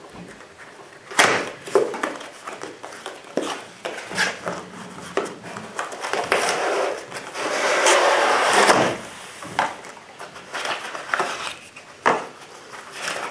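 Cardboard scope box handled and opened by hand: scattered taps, rustles and knocks of paperboard, with a longer sliding scrape about halfway through as the inner box comes out of its sleeve.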